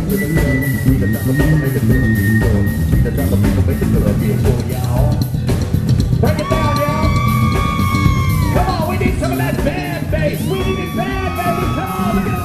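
Live funk band playing a groove, led by electric bass and drum kit. Two long held high notes ride over it, from about halfway and again near the end.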